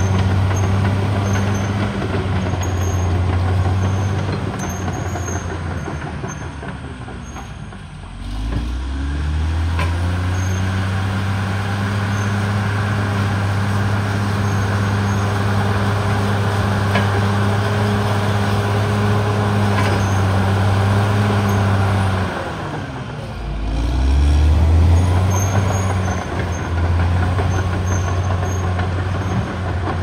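Caterpillar D6R XL bulldozer's diesel engine running steadily under load while the dozer pushes soil. Twice, about eight seconds in and again near twenty-three seconds, the engine speed drops low and then climbs back up.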